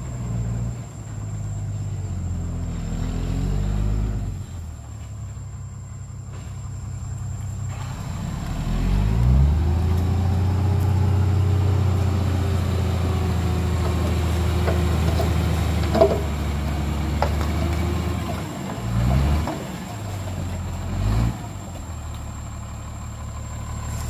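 Small dump truck's diesel engine revving up as it reverses, then held at high, steady revs while the hydraulic hoist tips its load of soil, with one sharp clank partway through. The revs fall back and blip twice near the end.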